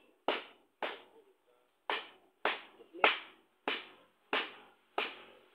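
Wooden tamper knocking on a concrete hollow-block mold as the mix is packed in: about eight sharp knocks at a steady beat of nearly two a second, with a short pause about a second in.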